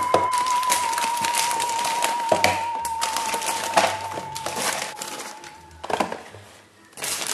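Clear plastic bag crinkling and small cardboard boxes being shuffled and set down on a table, with light knocks. Under it runs a long held, slightly wavering tone of background music that stops about six seconds in.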